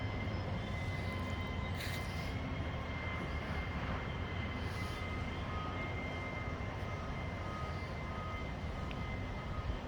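Steady low rumble of strong wind on the microphone, mixed with a constant mechanical drone from distant tree-removal equipment.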